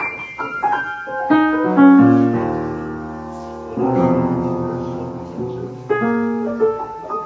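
Grand piano keys pressed by a cat walking across the keyboard: scattered single notes and clumps of several keys at once, each left ringing, with the loudest clumps about two, four and six seconds in.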